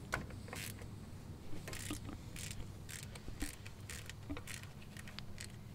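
GearWrench 120XP ratchet on a 10mm socket clicking in short, irregular strokes as a wheel-cylinder mounting bolt is worked loose.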